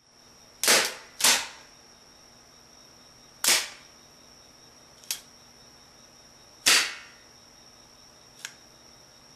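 A wooden rubber band hand gun's hook and trigger mechanism snapping as it is worked and releases its two loaded rubber bands: a series of sharp wooden clacks. Two come close together about a second in, then single ones at about 3.5 and 7 seconds, with lighter clicks in between.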